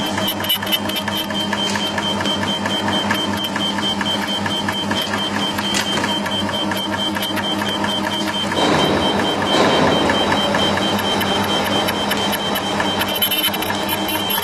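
Ultrasonic label cutting machine running: a steady hum with a rapid, even ticking. A louder rushing noise comes in for a couple of seconds past the middle.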